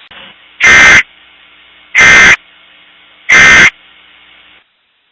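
Emergency Alert System end-of-message tones: three short, harsh buzzing bursts of SAME digital data, each about a third of a second long and spaced about 1.3 s apart, over a faint steady hiss that cuts off near the end. The bursts mark the close of the alert message.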